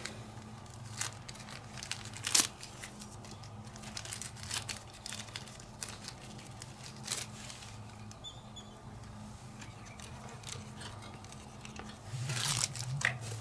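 Small rustles and clicks of a new carburetor gasket and its plastic bag being handled as the gasket is fitted at the engine's intake, over a steady low hum. A longer, louder rustle comes near the end.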